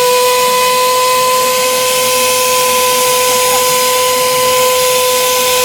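Homemade jet engine rig giving a steady whistling whine over a loud, even rush of air.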